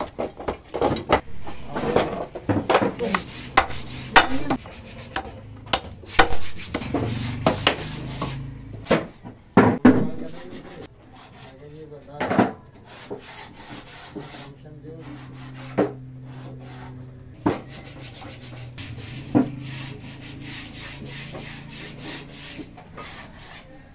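Hand-sanding bare wood: rapid scraping strokes of sandpaper rubbed over a wooden box frame, with knocks, for about the first ten seconds. After that it turns quieter, leaving a low steady hum and a few scattered knocks.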